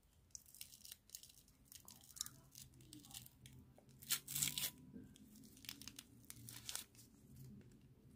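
A thin, crinkly sticker-packet wrapper being torn open and pulled apart by hand: a run of short crackling rips and crinkles, the loudest about four and a half seconds in, over a faint low hum.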